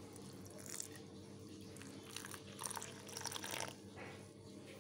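Water poured into a steel bowl of gram flour, chopped onion and green chilli: faint splashing and trickling, strongest between about two and three and a half seconds in.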